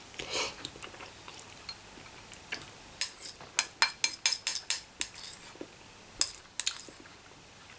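Chopsticks clicking and scraping against a noodle bowl. A quick run of sharp clicks comes about three seconds in, then a couple more near the end.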